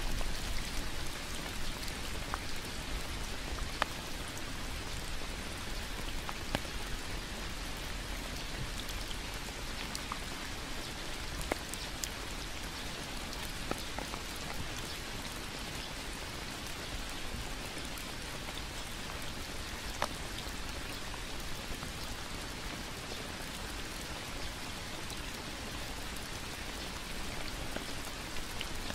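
Steady rain falling on leaves and a wet paved path, an even hiss with occasional single drips standing out.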